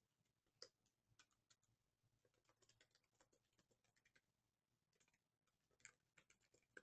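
Faint, irregular clicking of computer keyboard keys being typed, with a couple of louder key strokes about half a second in and near the end.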